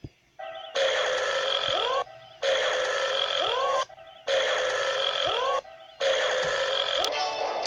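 A short, loud, noisy sound clip played in a loop: the same sound about a second and a half long repeats four times, with short gaps between.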